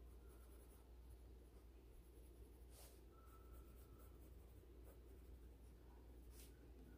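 Faint scratching of a Prismacolor colored pencil shading on coloring-book paper, over a low steady hum, with two brief sharper strokes about three seconds in and near the end.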